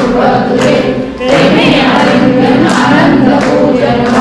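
A group of worshippers singing a Marathi aarti together in unison, over a steady beat of sharp strokes about every half second; the singing dips briefly about a second in, between lines.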